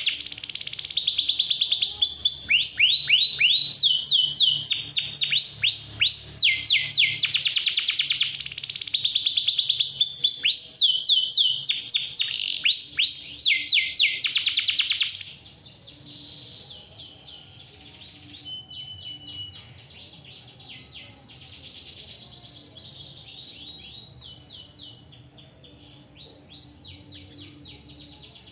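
Domestic canary singing long, fast trills and rolling phrases. About halfway through, the song suddenly becomes much quieter and continues faintly.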